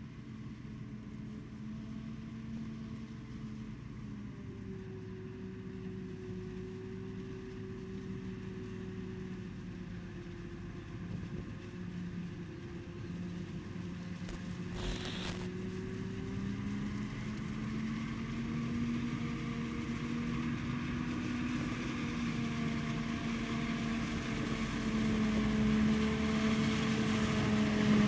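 Claas Jaguar 960 forage harvester running under load as it chops sorghum, a steady engine drone with slowly wavering pitch that grows louder as the machine and the truck alongside it come closer. A brief sharp click about halfway through.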